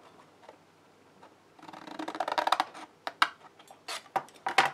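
Small craft snips cutting through folded cardstock: a dense run of crisp snipping and paper crackle lasting about a second, followed by a few separate sharp clicks near the end.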